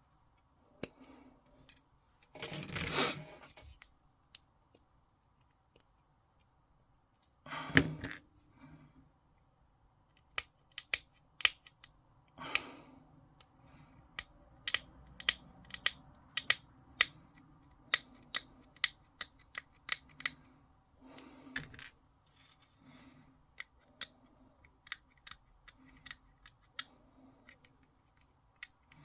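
Sharp clicks and snips of small plastic miniature parts being cut from the sprue and handled, with two short rustling scrapes in the first eight seconds and frequent irregular clicks after about ten seconds.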